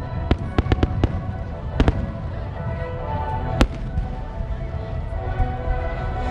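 Aerial fireworks bursting: a quick run of sharp bangs in the first two seconds and one more near the middle, over a continuous low rumble of distant explosions.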